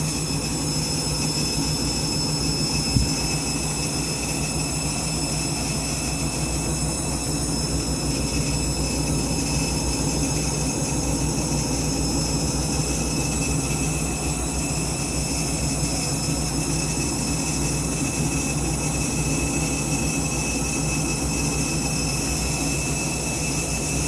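Candy washing machine spinning, noisy: a steady motor whine over the rush of the drum, unchanging throughout, with a single knock about three seconds in.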